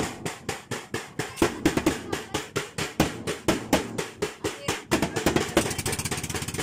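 Hand percussion, a tambourine among it, beating a steady rhythm of about four to five strikes a second. About five seconds in, the beat turns into a faster, denser rattle.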